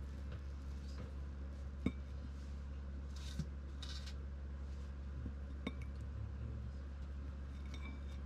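Kitchen tongs and cooked chicken drumsticks set down on a ceramic plate: a few short clinks, the loudest about two seconds in, with a couple of brief rustles in between, over a steady low hum.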